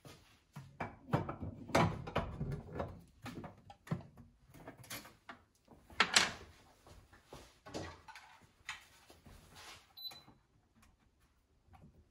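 Espresso machine portafilter knocking and clicking against the Rancilio Silvia's group head as it is fitted and twisted into place, the loudest knock about six seconds in. After that come lighter knocks as a digital scale is set on the metal drip tray, and a short high beep.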